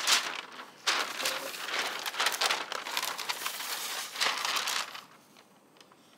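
Diamond painting cover paper crinkling and rustling as it is unrolled from its roll over the canvas. It goes in a short burst at the start, then runs on from about a second in and stops about a second before the end.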